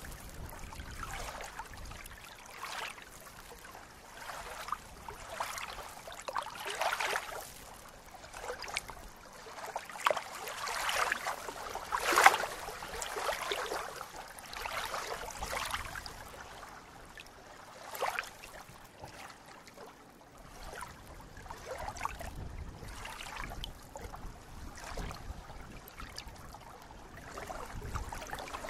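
Small waves lapping and splashing irregularly against the reedy edge of a lake, with a louder splash about twelve seconds in.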